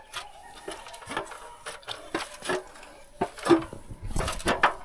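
Irregular knocks, bumps and rubbing of things being handled in a small wooden-lined space, with a sharp knock about three and a half seconds in and a cluster of heavier thuds near the end.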